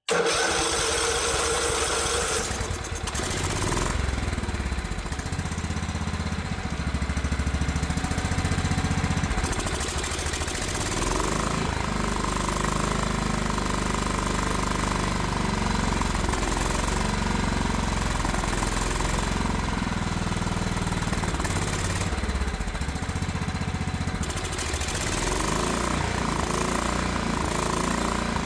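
Craftsman riding mower's small gasoline engine running roughly, its speed wavering up and down unevenly.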